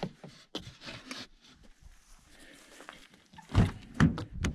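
Soft rustles and small clicks of things being handled inside a car, then a few sharp clunks near the end as the car's rear side door is opened.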